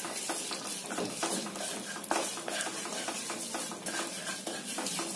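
White sesame seeds sizzling in hot oil in a non-stick kadhai, with many small pops, while a wooden spatula stirs and scrapes them around the pan: the sesame tadka being roasted toward golden brown.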